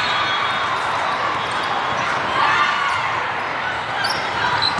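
Indoor volleyball rally: ball contacts and players' footwork over a steady din of voices from the crowd and neighbouring courts, echoing in a large hall. The voices swell briefly about halfway through.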